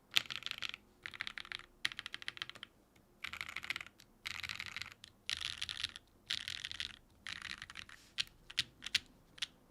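Typing on a Geonworks F1-8X 722 mechanical keyboard with lubed Gateron Cream Soda linear switches on an aluminum plate and GMK keycaps: rapid bursts of keystrokes with short pauses between, ending in a few single key presses near the end.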